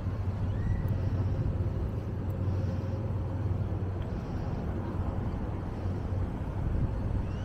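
Outdoor city ambience: a steady low hum of distant traffic under an even wash of noise, with a faint high chirp about a second in.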